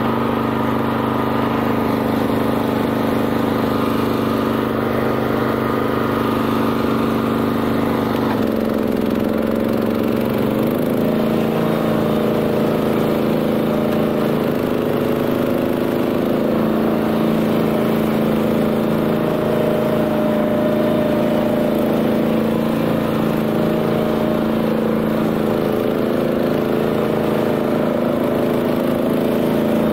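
Single-cylinder Honda GX390 engine of a BCS 740 two-wheel tractor running steadily while driving a flail mower. Its tone shifts about eight seconds in, then holds steady.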